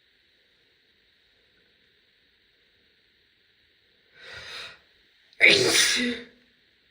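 A woman sneezing loudly once, about five and a half seconds in, after a quieter intake of breath a second earlier.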